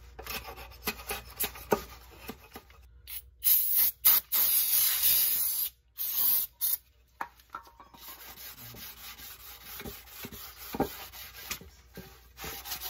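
A blade scraping old gasket material off the flange of a steel transmission oil pan, with sandpaper rubbing it smooth, in short broken strokes with several abrupt cuts. About three and a half seconds in comes a loud hiss lasting about two seconds.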